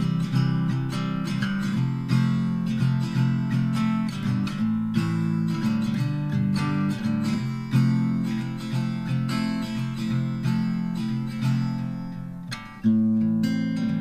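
Background music of acoustic guitar, plucked and strummed. It dips briefly near the end and then comes back in louder.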